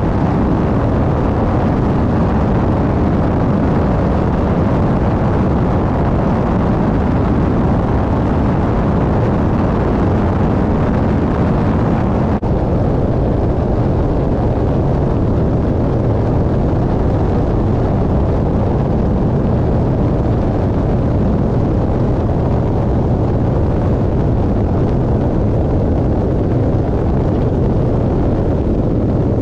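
Super Decathlon's four-cylinder Lycoming engine and propeller running in flight, heard from the tail as a steady heavy rumble mixed with wind rushing over the action camera's microphone. There is a momentary drop about twelve seconds in.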